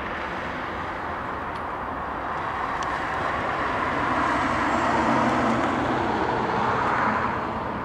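Airbus A320-231's IAE V2500 turbofan engines at takeoff thrust as the airliner rolls, lifts off and climbs away: a steady jet roar that swells to its loudest about four to five seconds in, then falls off shortly before the end.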